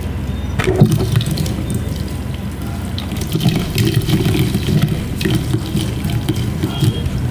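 Gym chalk being crushed in water: a continuous wet, sloshing sound with many small irregular crackles and a few sharper squelches.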